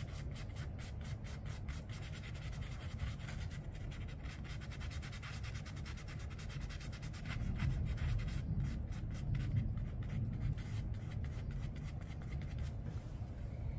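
A nearly dry watercolor brush rubbing lightly over watercolor paper in quick short strokes, a soft scratchy brushing several times a second that eases off just before the end.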